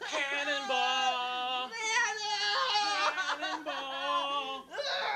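Several people yelling and wailing at once, long high-pitched cries overlapping and sliding in pitch, with two brief breaks.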